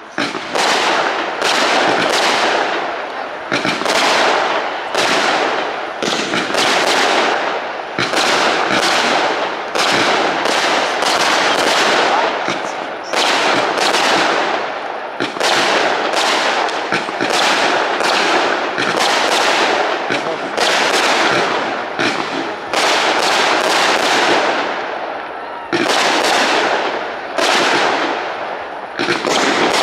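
Fireworks display: a dense, continuous series of loud shell bursts, about one or two bangs a second, each trailing off in a crackling echo.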